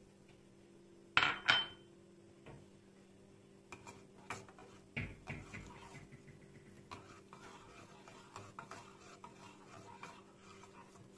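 Kitchenware clinking: two sharp clinks about a second in, the second ringing briefly, then a run of lighter taps and scrapes of utensils against dishes.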